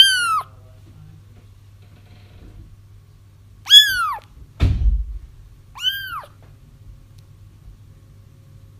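Kittens crying: three short, high-pitched mews, each rising then falling in pitch, the isolation cries that draw a mother cat. A dull thump sounds about halfway through, between the second and third cries, over a faint low hum.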